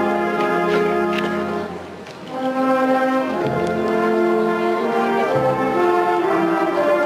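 Brass band playing a slow march in long held chords, with a short break between phrases about two seconds in.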